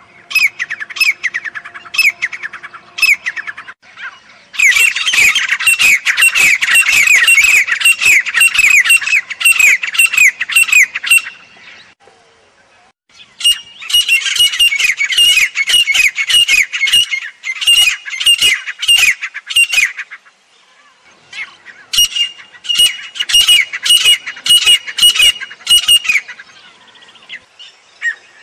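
Grey francolin calling: fast, loud series of high-pitched repeated notes, in four bouts of several seconds each with short pauses between.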